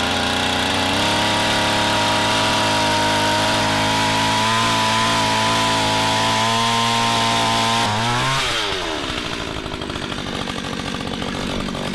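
Gas-powered ice auger running at full throttle as it drills a hole through the lake ice. About eight seconds in, the engine pitch falls as the throttle is let off, and it keeps running at a lower, quieter speed.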